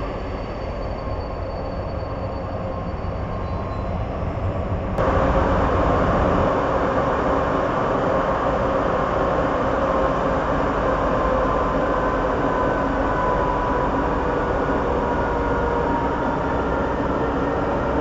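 Electric locomotive EU07A-001 moving slowly at the head of a passenger train, its motors whining with several tones that drift slowly in pitch over a steady rumble of wheels. Before that, for about five seconds, the steady rumble of the train standing at the platform.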